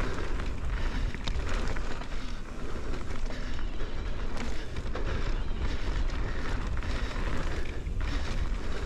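Mountain bike rolling fast down a dirt trail: tyres on the dirt, with the bike rattling over bumps and wind rumbling on the microphone.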